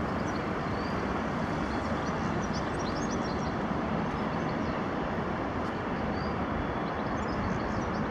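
Steady, even rumble of a distant four-engined Airbus A380 jet airliner on final approach, with faint high chirps above it.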